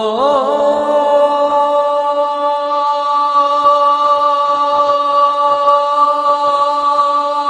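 A man's voice calling the adhan, the Islamic call to prayer, holding one long note on "Allahu akbar". The note wavers briefly near the start, then stays steady.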